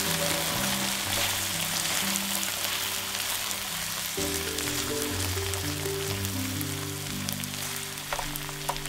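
Diced onion, red pepper and tomato passata sizzling in a non-stick frying pan while a slotted spatula stirs them, with a few sharp clicks near the end. Background music with held low notes plays underneath.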